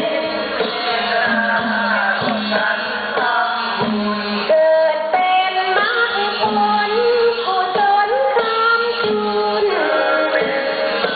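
Music: a female voice singing a wavering, sliding melody over a regular drum beat.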